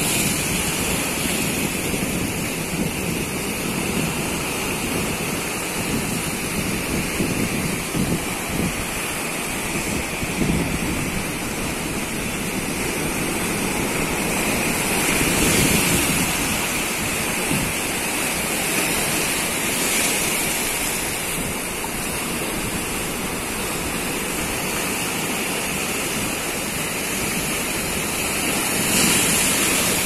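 Sea surf washing and breaking over low rocks, a steady rush of churning, foaming water that swells louder about halfway through and again near the end.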